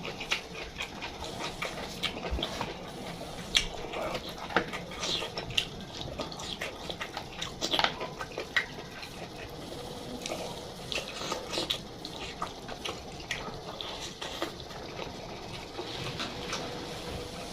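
Close-up chewing and mouth sounds of a person eating, with many irregular wet smacks and clicks.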